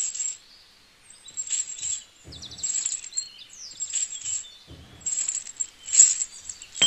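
Small metal chain clinking and jingling as its links are handled and hooked onto a metal fitting, in light irregular clinks.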